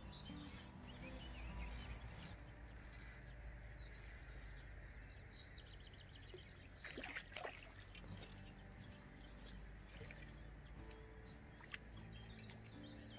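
Soft background music with steady low notes and a few small bird chirps over it, and a brief rush of noise about seven seconds in.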